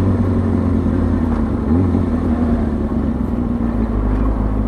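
2003 Kawasaki ZX-6R 636's inline-four engine running steadily at low revs as the bike rolls slowly in traffic. There is a brief change in engine pitch a little under two seconds in.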